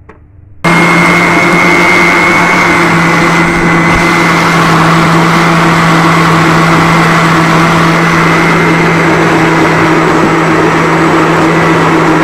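Electric jug blender running loud and steady as it blends mango pieces with milk into a milkshake: a motor hum with a high whine over the churning liquid. It switches on abruptly about half a second in and cuts off near the end.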